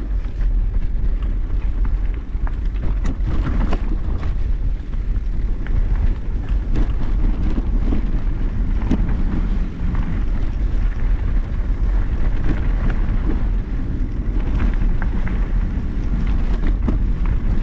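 Mountain bike ridden over a dirt and rock trail: wind rumbling on the microphone, with tyres on the ground and the bike rattling in frequent short clicks and knocks.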